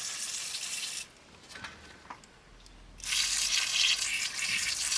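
Two bursts of high hissing spray, one in the first second and a longer one from about three seconds in, cleaning oil out of a wiring plug.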